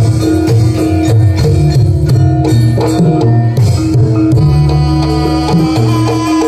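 Live Javanese jaranan music: an ensemble with hand drums beating steadily under a held ringing tone and other pitched instruments.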